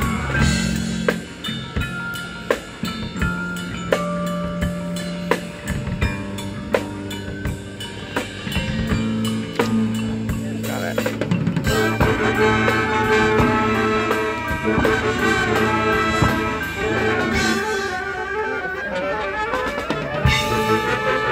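Marching band playing: drumline hits and held low-brass notes, with the band's fuller sound and more horns coming in about halfway through.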